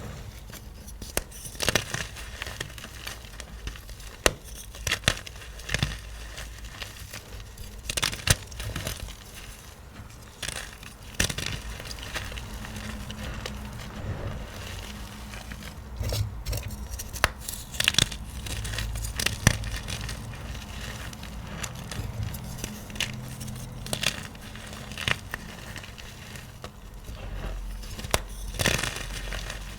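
Small dyed gym chalk blocks of magnesium carbonate being crushed, crunching and crackling in irregular bursts, with a low hum underneath.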